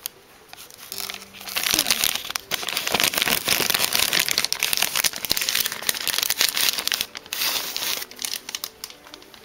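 Plastic wrapping on a trading card box crinkling and crackling as it is handled, loud and busy from about a second and a half in, easing off near the end.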